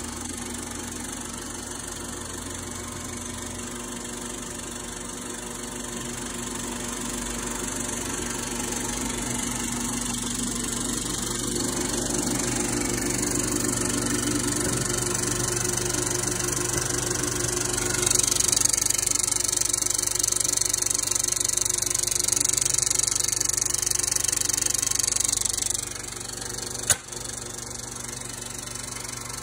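Century C 35mm film projector running: a steady mechanical hum and whir from its motor and mechanism, growing louder as the sound comes closer. A hiss joins for several seconds in the second half, and there is a single sharp click near the end.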